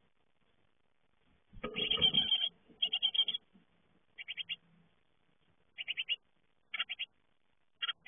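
Great tit nestlings inside a wooden nest box begging for food: short bursts of rapid, high repeated calls about once a second. The loudest burst, about a second and a half in, comes with a low thump and scuffle in the box as an adult arrives.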